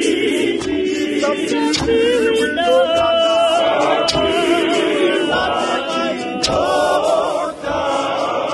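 Choir singing a Zulu gospel song a cappella, many voices in harmony without instruments. Three sharp beats cut through the singing, about two and a half seconds apart.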